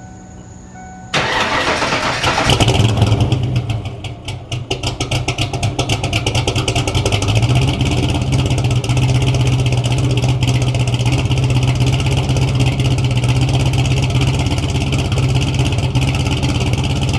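1994 Ford Mustang's engine starting: a sudden burst of cranking about a second in, the engine catching and running up hard, dipping briefly, then settling into a steady idle.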